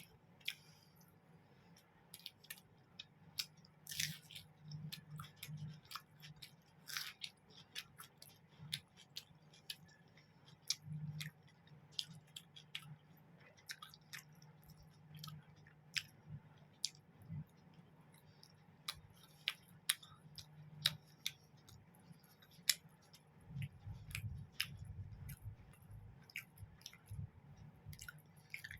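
Close-up eating: chewing and wet mouth clicks and smacks as mutton curry and roti are eaten, in irregular bursts, with a denser run of chewing near the end.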